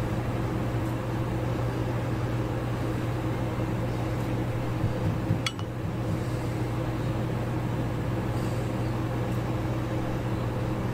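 A 1960s Toastmaster Model 5302 12-inch electric fan running: a steady motor hum with the rush of its spinning blades. A single sharp click about halfway through.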